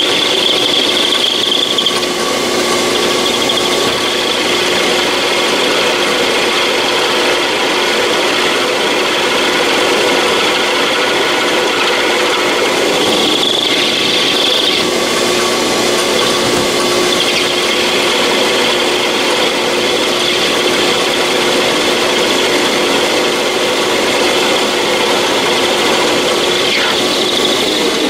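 Machining the annealed, softened steel punch down to a smaller diameter on a small metal lathe: a steady machine run with the cut giving a steady high-pitched tone over it.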